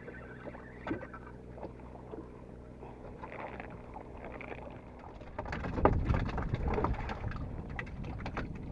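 Sounds aboard a small fishing boat at sea: a faint steady low hum with a few light knocks, then from about five seconds in a louder stretch of rushing, splashing noise.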